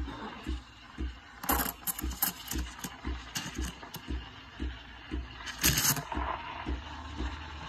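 Breville espresso machine's steam wand hissing into milk in a stainless steel pitcher, over a regular low thump from the machine about twice a second. The hiss turns louder and spitting at about one and a half to two and a half seconds in and again near six seconds.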